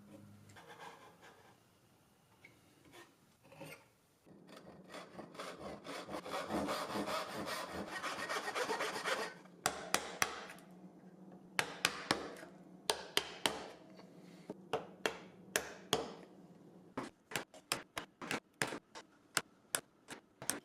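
Hand-tool work on wood: about four seconds in, a continuous rasping of a tool cutting wood for some five seconds, then a long run of sharp, irregular knocks on wood that come faster near the end.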